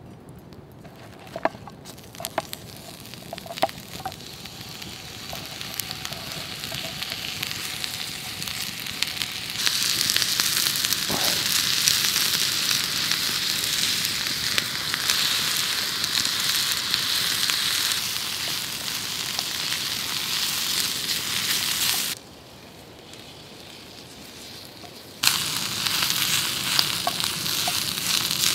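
Food sizzling in a hot frying pan over a wood campfire: fat greasing the pan, then sliced onion and pepper frying. A few sharp crackles from the burning wood come first. The sizzling builds and grows loud, drops away suddenly to the quieter fire for a few seconds, then returns loudly near the end.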